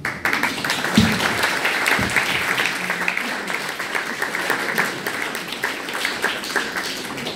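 Audience applauding: the clapping starts all at once and slowly thins out.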